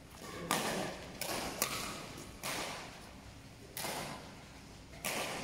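Badminton rally: rackets striking a shuttlecock, about six sharp hits roughly a second apart, each ringing on in a large echoing hall.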